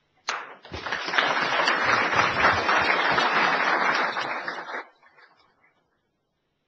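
Audience applause: a burst of clapping that builds within the first second, holds for about four seconds and then dies away.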